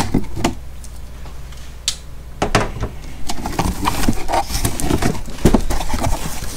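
A cardboard box being opened by hand: its flaps are pulled open and the box is tipped over. There are scattered knocks and scrapes of cardboard, with rustling that gets busier in the second half.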